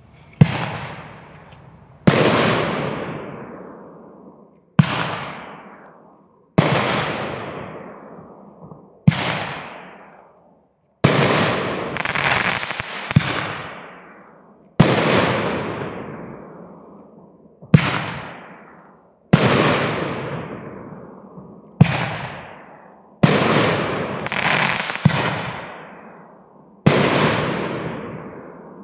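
Nico Hammerschlag firework battery (cake) firing shot after shot: about fifteen sharp bangs, one every one and a half to three seconds, each trailing off over a second or two before the next.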